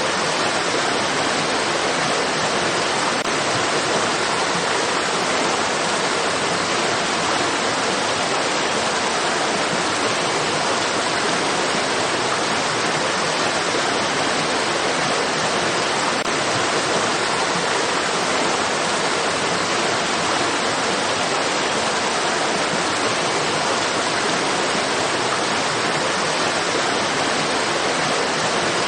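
Running water rushing steadily: an even, unbroken hiss with no separate splashes or changes.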